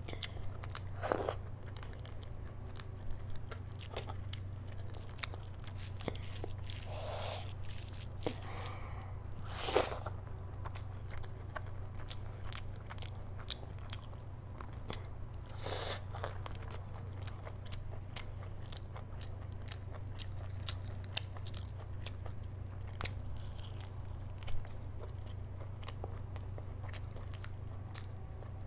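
Close-miked eating by hand: mouthfuls of rice and mutton curry being bitten and chewed, with meat pulled off a mutton piece, full of small wet clicks and smacks and a few louder, longer wet sounds.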